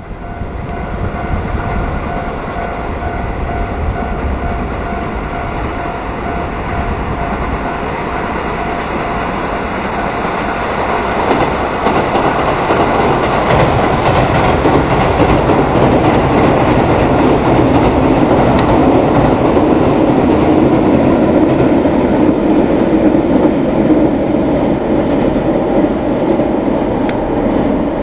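Keihan Railway 7000 series electric multiple-unit train running across a steel truss bridge: a continuous rumble and clatter of wheels and running gear on the steel span. It grows louder about a third of the way in and stays loud.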